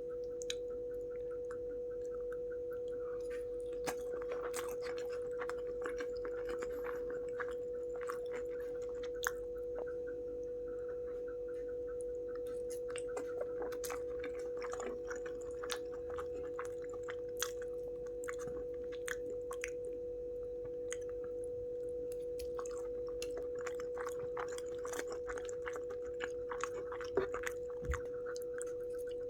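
Close-miked chewing and biting of spicy tadka Maggi instant noodles, many small wet clicks and crunches, over a steady pitched hum.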